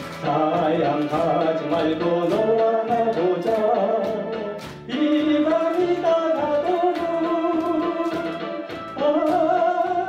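A man sings a Korean song into a microphone through a PA, over a recorded backing track with a steady beat. His long held notes come in phrases, with brief breaks about five and nine seconds in.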